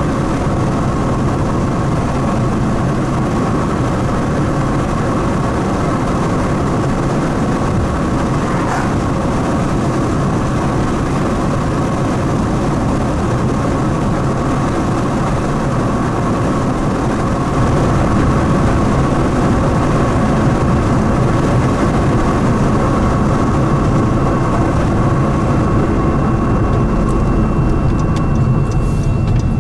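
Steady road and engine noise heard inside a moving car's cabin, getting a little louder about 18 seconds in.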